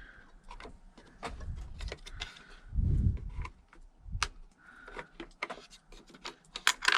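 Small metal tools and engine parts clicking and clinking as they are handled, in scattered irregular ticks, with a louder low thump about three seconds in.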